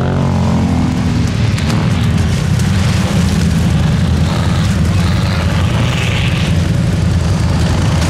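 An off-road vehicle's engine running steadily with a deep, constant rumble, with a few short knocks about a second and a half in.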